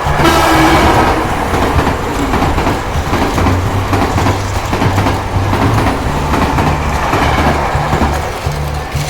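Battery-powered Plarail toy train running on plastic track: a steady motor whir with wheels clattering, starting suddenly, over background music with a repeating bass line.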